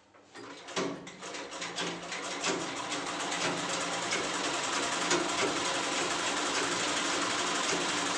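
Black domestic sewing machine starting up about a second in and then stitching at a steady speed, a rapid even clatter of the needle and mechanism, as piping is sewn onto a fabric pocket.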